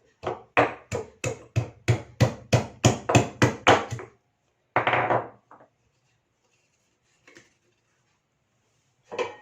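Fresh ginger being pounded to crush it, a rapid run of about a dozen strikes at roughly three to four a second for about four seconds, then one brief, broader noise about five seconds in.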